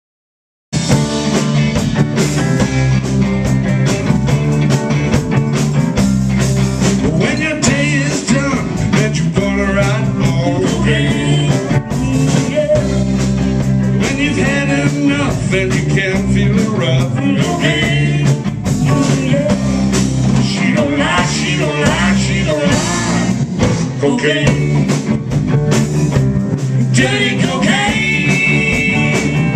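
Live blues band playing: electric guitars, bass and drums with a woman singing. The music cuts in abruptly just under a second in.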